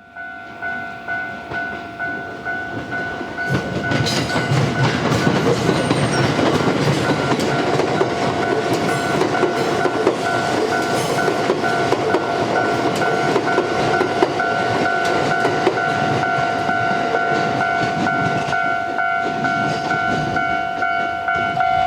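Japanese level-crossing alarm ringing in a steady two-tone clang about twice a second. About three and a half seconds in, a Yokosuka Line E235-1000 series electric train starts going through, its wheels rumbling and clattering over the rail joints, under the alarm until near the end.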